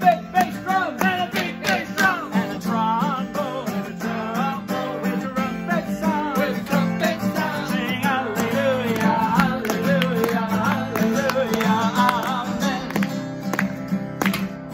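Acoustic guitar strummed steadily under several voices singing a lively praise song, with a few sharp percussive strokes near the start and near the end.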